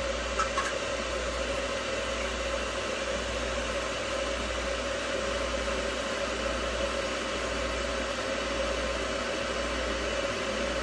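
Stainless-steel electric kettle with water at the boil: a steady rushing hiss of boiling water.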